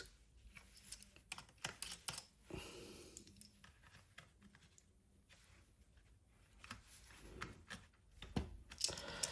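Light, irregular clicks and taps of small screws, tweezers and plastic parts being handled while a VR headset is disassembled, clustered at the start and again near the end.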